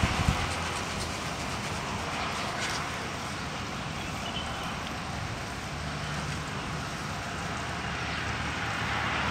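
Sandstorm wind blowing in gusts, buffeting the microphone with low thumps at the start, then a steady rushing that swells again near the end.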